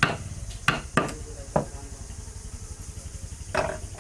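Sharp knocks of tools striking wood, about six at uneven intervals, with the last one longer, over a steady low hum.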